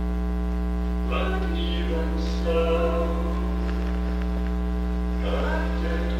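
A film's sung dialogue playing over room loudspeakers, a voice holding and bending sung notes, under a loud steady mains hum from the playback system.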